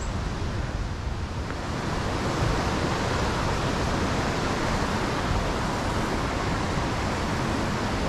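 Temperance River's white water rushing: a steady, even hiss that grows slightly louder about two seconds in.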